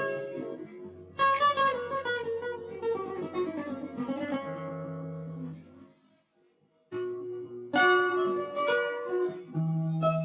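Background music led by plucked guitar-like strings, breaking off for about a second near the middle before starting again.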